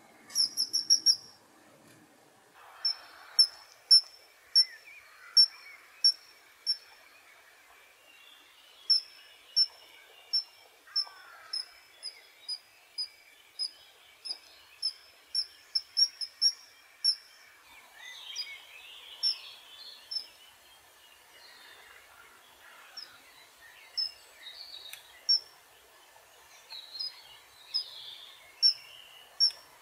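Kingfisher calling: a long series of short, shrill, high-pitched notes, about one or two a second, with a quick burst just after the start and a few pauses. Other birds chirp faintly underneath.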